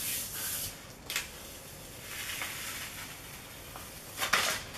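A hand rubbing over the back of a sheet of paper pressed onto a gel printing plate, a soft hissing swish, to take up the paint. A single click comes about a second in. Near the end the paper is peeled off the plate with a short, louder rustle.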